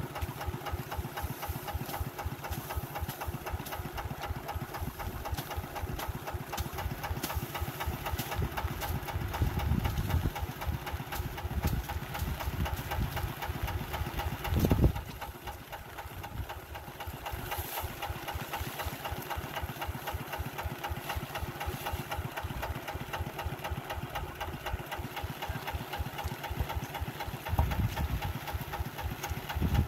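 Kubota tractor's diesel engine running with a rapid, even knock. It grows louder for a moment about a third of the way in, swells sharply halfway through before dropping back, and picks up again near the end.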